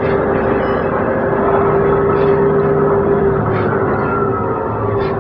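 Noto Railway diesel railcar heard from inside the passenger cabin while running: a steady engine and transmission drone with a whine that eases slightly lower after about three and a half seconds, over wheel-on-rail rumble and a faint click every second or so.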